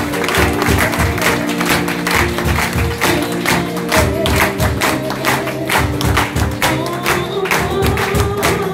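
Music with a steady beat, with people clapping along in time.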